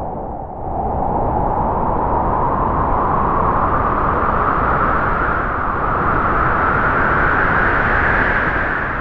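Halloween horror sound effect: a long, loud rushing noise that cuts in suddenly and holds steady, its pitch slowly rising.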